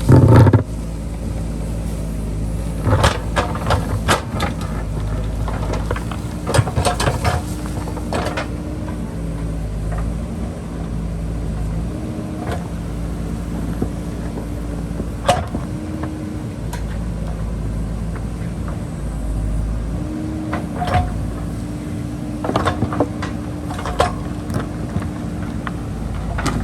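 JCB backhoe loader's diesel engine running steadily under load. Over it come scattered clanks and knocks from the digging: a loud one at the start, then clusters of several at a time.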